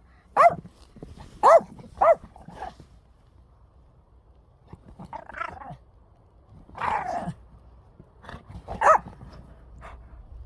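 Dogs barking in play: four short, sharp barks in the first three seconds, rougher growly sounds in the middle, and one more bark near the end.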